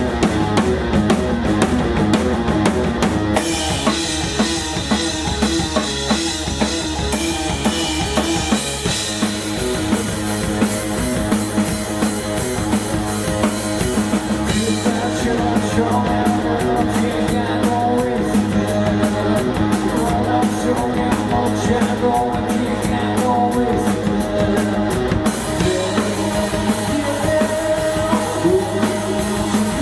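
Rock band playing live, with the drum kit prominent over guitar and bass. The arrangement shifts several times, about 3, 9, 15 and 25 seconds in.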